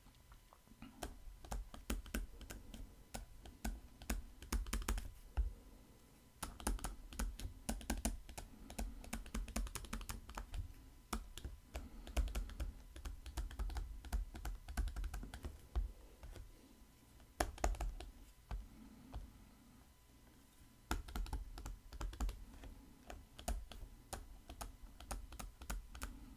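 Stylus tapping and scratching on a tablet screen while handwriting words, an irregular run of light clicks over low knocks that pauses briefly twice.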